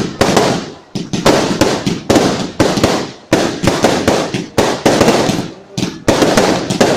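Aerial fireworks firing shot after shot: a string of sudden loud bangs, roughly one to two a second, each fading away before the next.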